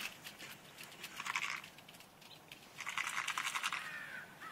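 Crunching, scraping steps on gravelly arena footing, in two bouts: a short one about a second in and a longer one from about three seconds in.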